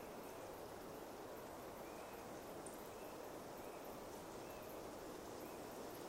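Pine forest ambience: a faint, steady hush with soft, short bird chirps repeating every half second to a second and faint high ticking over it.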